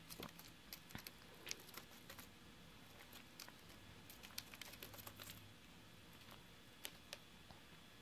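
Near silence with faint, scattered light ticks and rustles, likely cockatiels' feet and bills moving over newspaper and wood shavings on a cage floor.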